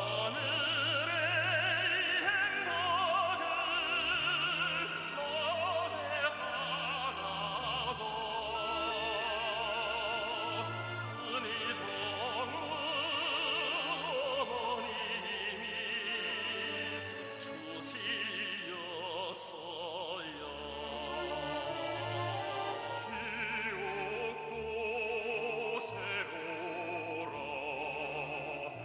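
Operatic singing with a wide vibrato over orchestral accompaniment.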